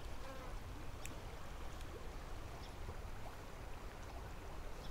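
Quiet creekside ambience: a faint, steady hiss of flowing water over a low rumble, with a few faint ticks.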